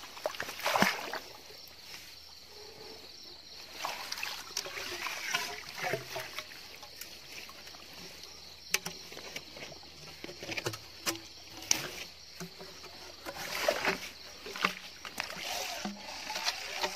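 Water sloshing and splashing in irregular bursts, with leaves swishing and rustling as someone moves through flooded marsh weeds. A couple of sharp knocks stand out, and a steady high background hum runs underneath.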